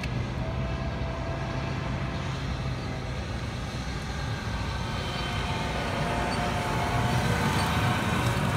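Diesel engine of a large John Deere cab tractor running, a steady hum at first, growing louder with a rising whine as the tractor drives up and passes close by.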